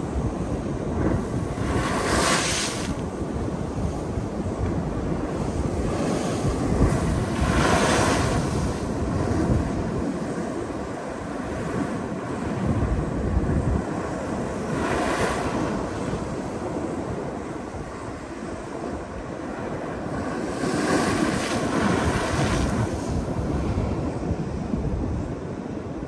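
Ocean waves breaking against the edge of a sandstone rock platform, with a steady wash of surf. Four bigger waves crash and spray, the first about two seconds in and the others roughly every six to seven seconds after.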